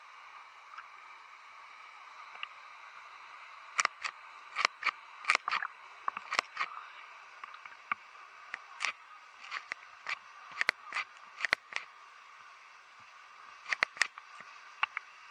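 Waterfall water heard close to the microphone: a steady hiss with many irregular sharp clicks and pops, which begin about four seconds in and come thickest through the middle and again near the end.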